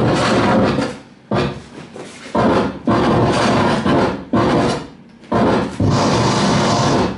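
Live harsh noise music: loud, dense walls of noise that cut in and out abruptly in blocks, with short quieter gaps, then holding steady for the last couple of seconds.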